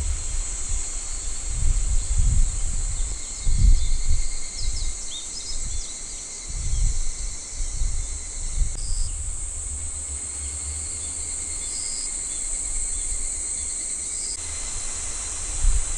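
Outdoor evening ambience: insects trilling steadily in a high-pitched chorus, with a few short bird chirps about four to five seconds in. Gusts of wind buffet the microphone with low rumbles, the loudest sound.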